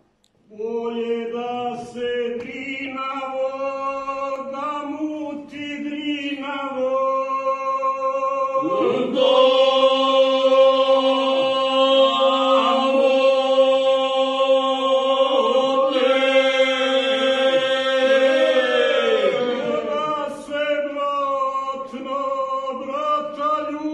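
Four men singing a traditional Dinaric Serbian folk song a cappella, in close harmony with long held notes. The voices come in about half a second in and grow louder about nine seconds in.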